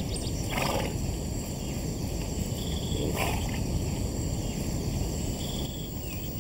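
Steady outdoor ambience: a low, even rushing noise with faint high chirps, and two short rustling sounds about half a second and three seconds in.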